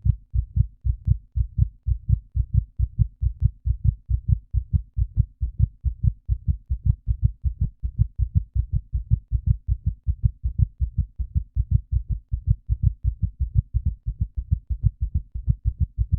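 Heartbeat sound effect: a fast, steady run of low, muffled thumps.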